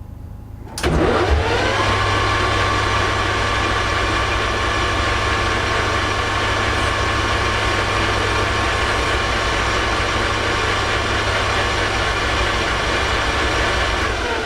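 Metal lathe switched on about a second in, spinning up quickly and then running at a steady speed with an even motor and gear whine.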